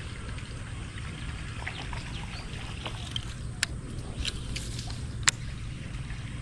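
Low, steady hum of a small fishing boat's motor, with two sharp clicks about three and a half and five seconds in.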